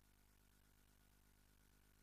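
Near silence: a faint, steady hiss and low hum with no distinct sounds.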